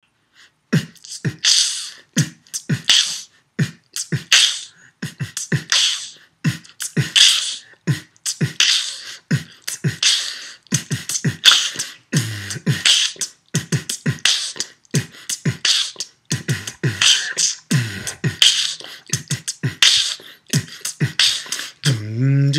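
Beatboxing: one performer's mouth making a steady rhythm of low kick-drum thumps and hissing snare sounds, starting about a second in. A few short hummed bass notes join the beat about halfway through.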